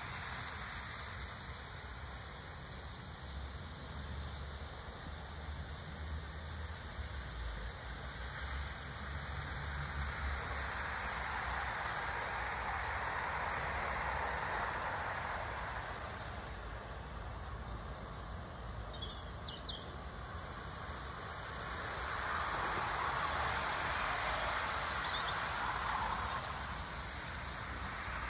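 Outdoor garden ambience: a steady rushing noise with a low rumble, swelling twice, broken by a few short bird chirps.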